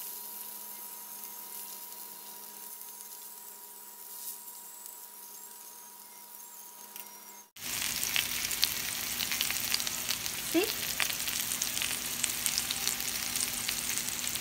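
Eggplant halves sizzling and crackling in a little oil on a ridged grill pan. The sizzle is faint at first over a steady hum, then louder and denser with many small pops from about halfway.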